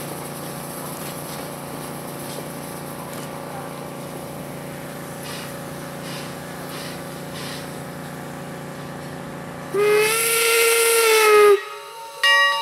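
Steam locomotive Leviathan, a 4-4-0 replica, blowing its single-chime whistle once for about two seconds near the end. The whistle drops slightly in pitch as it cuts off, over a steady low hum. Just after, bell-like ringing begins.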